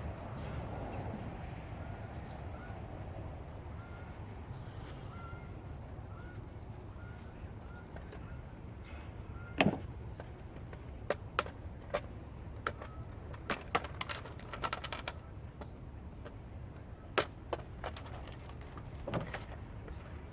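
Scattered sharp clicks and knocks of tools and metal parts being handled while an electric scooter is taken apart, starting about halfway through; the loudest knock comes about ten seconds in. Over the first half a small bird chirps repeatedly.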